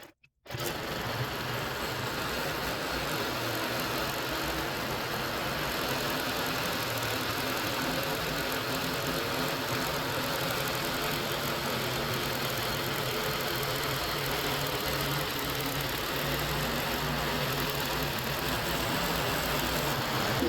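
Harbor Freight bandsaw sawmill's gasoline engine running steadily, starting abruptly about half a second in.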